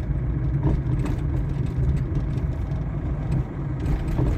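Steady engine and road rumble heard inside the cab of a moving loaded vehicle.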